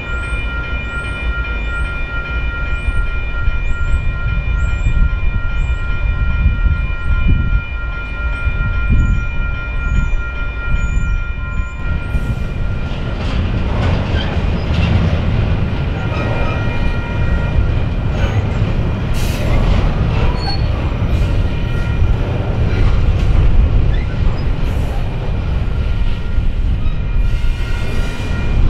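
A freight train rolling past close by: a low rumble all along, with a steady high-pitched ringing tone over roughly the first twelve seconds, then louder wheel noise and clattering of the cars over the rail joints.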